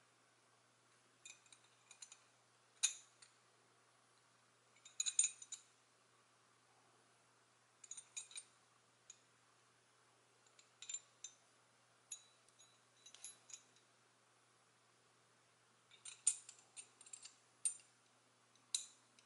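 Two metal pieces of a Hanayama Seahorse cast puzzle clicking and clinking against each other as they are handled and fitted back together. The light metallic taps come in irregular clusters.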